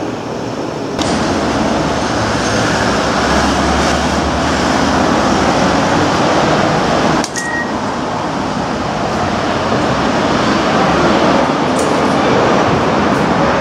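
Steady rumbling railway-station background noise. About seven seconds in, after a sudden break, an automatic ticket gate gives one short high beep as it reads an IC card and lets it through.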